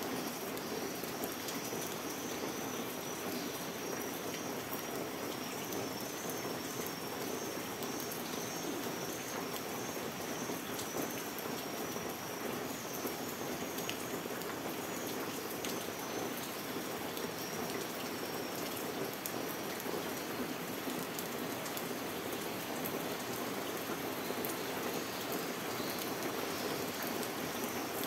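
Steady rain falling on a wet wooden deck, shrubs and grass. A faint, high, repeated chirping runs through much of it and comes back near the end.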